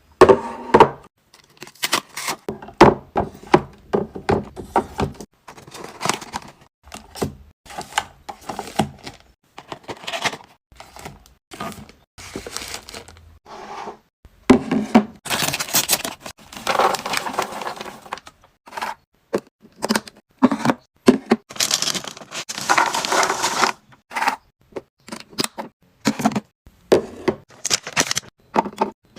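Food packaging and storage containers handled while a fridge is restocked: a quick run of sharp plastic clicks, knocks and thuds, with longer stretches of crinkling and rustling, about halfway through and again later on.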